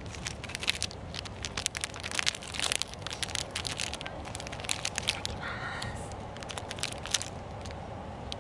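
Plastic wrapper of a Big Katsu snack crinkling and crackling close to the microphone as it is opened and the breaded cutlet pulled out. It makes a run of sharp crackles that stops about seven seconds in.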